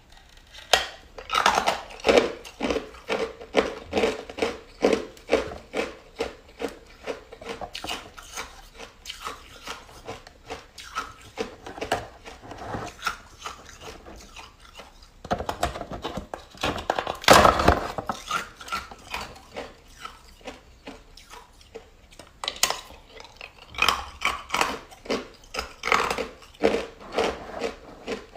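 Ice being chewed close to the microphone: a steady run of crisp crunches, about two to three a second, with a louder stretch of crunching about halfway through.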